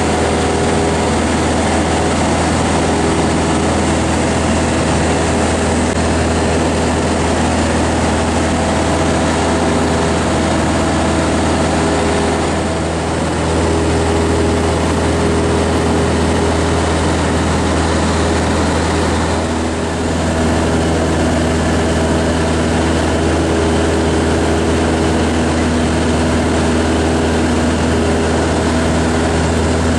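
Piston engine and propeller of a light aircraft droning steadily in flight, heard from inside the cockpit, dipping briefly in level twice.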